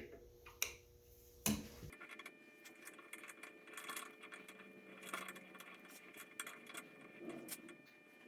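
Faint, irregular light metallic clicks and clinks of small hand tools being handled at a workbench.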